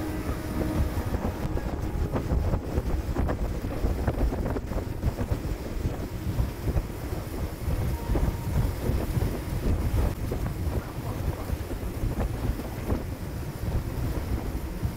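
Speedboat running fast across open sea: a steady low rumble of the boat and water, with heavy wind buffeting the microphone.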